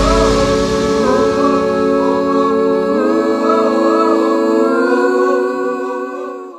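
Background music outro: held chords that shift twice, fading out at the end.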